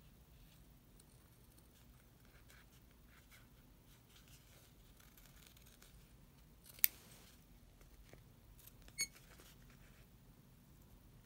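Gingher fabric scissors snipping through a sheet of faux leather, faintly, in short cuts along a traced line. There are two sharp clicks, one about two-thirds of the way through and a smaller one a couple of seconds later.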